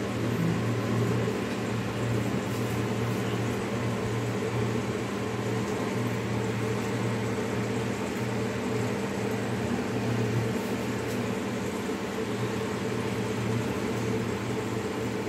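Steady low mechanical hum, like a fan or small motor running continuously, with no distinct events.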